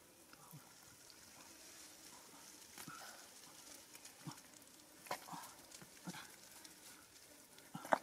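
Faint, scattered squelches and taps of gloved hands picking fish out of wet mud and dropping them into a plastic basket, over a faint steady hiss.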